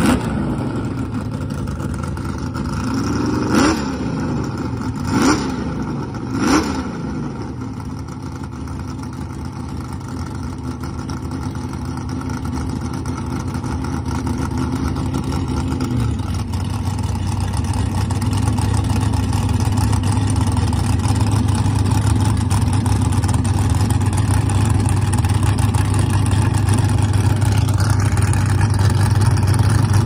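Fox-body Ford Mustang drag car's engine idling, blipped three times in quick revs between about three and a half and six and a half seconds in, then idling on steadily and a little louder from about halfway through.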